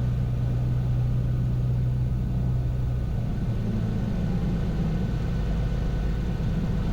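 Cirrus SR22T's turbocharged six-cylinder piston engine and propeller running steadily at low power, heard from inside the cabin. Its low note shifts slightly about three seconds in.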